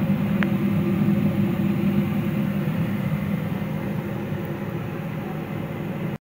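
Donuts frying in a pan of hot oil: a steady sizzle under a steady low hum, with one small tick about half a second in. The sound cuts out abruptly near the end.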